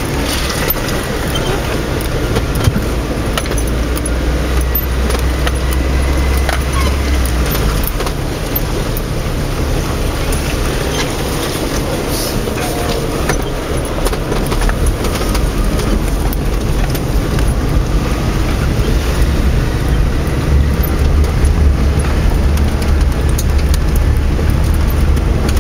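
Vauxhall Frontera Sport driving over a rough off-road track, heard from inside the cabin: a steady low engine and drivetrain drone with constant knocks and rattles as the body jolts along. The low drone eases about seven seconds in and builds again near the end.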